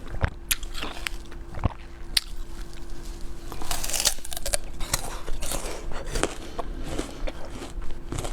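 Close-miked eating: chewing and biting into cake, with many sharp clicks and crackly mouth sounds and a faint steady hum underneath.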